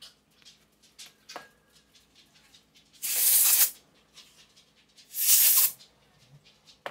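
Aerosol can sprayed through its thin red straw onto a chainsaw connecting rod and its needle bearings: two short hissing bursts, each under a second, about two seconds apart. A few faint clicks of small metal parts come before them.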